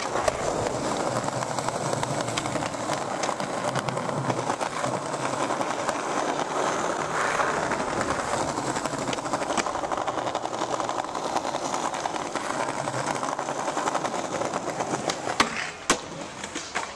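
Skateboard wheels rolling over stone paving, a steady rough rumble, then two sharp clacks near the end as the level drops.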